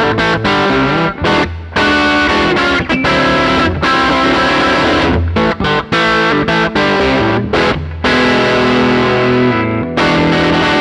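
Harley Benton SC550 Deluxe single-cut electric guitar played through distortion: a fast riff of picked notes and chords broken by short stops, with longer held chords in the last few seconds.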